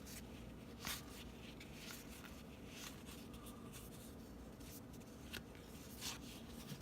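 Baseball trading cards being handled and flipped through by hand: faint paper sliding with soft flicks, a few of them a little louder.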